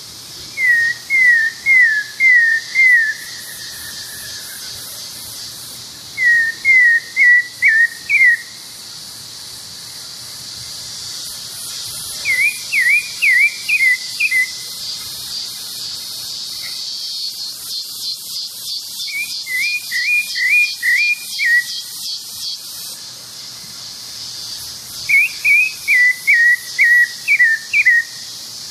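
Pale-breasted thrush (Turdus leucomelas) singing in five short phrases a few seconds apart, each a quick run of four to six sharp falling whistled notes. Insects keep up a steady, high, pulsing buzz behind it.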